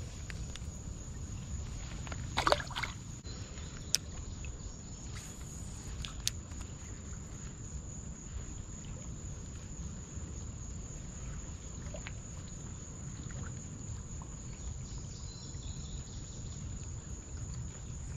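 Steady high-pitched insect drone over a low outdoor rumble, with a brief splash about two and a half seconds in and a sharp click about four seconds in.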